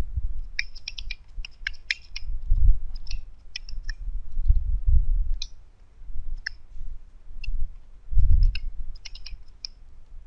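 Computer keyboard typing: clusters of quick key clicks with pauses between short runs of keystrokes. Several low dull thumps, louder than the clicks, come in between.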